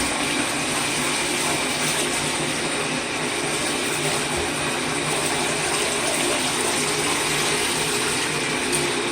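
Tap water running steadily into a tub over vacuum cleaner parts being rinsed clean, with a low steady hum beneath it.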